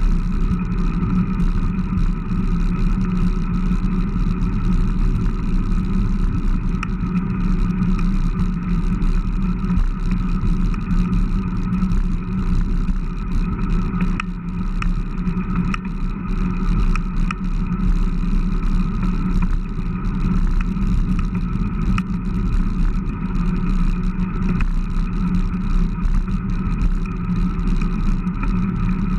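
Steady wind and road noise from riding a Fuji Newest 3.0 road bike, picked up by a handlebar-mounted camera, with a few light ticks near the middle.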